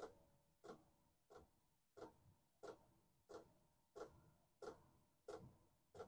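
Diesel heater's fuel dosing pump ticking faintly and evenly, about three clicks every two seconds, as it meters diesel to the burner.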